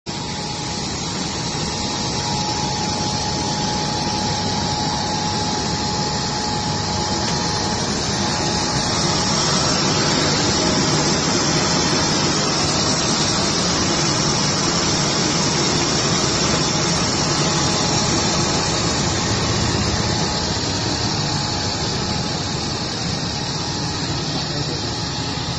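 Small fish feed extruder line running: a steady machine drone of electric motors and conveyors, with a constant high whine over it.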